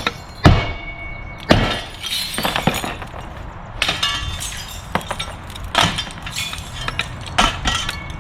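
Window glass being smashed out of its frame: several sharp blows a second or two apart, each followed by shattering and tinkling shards.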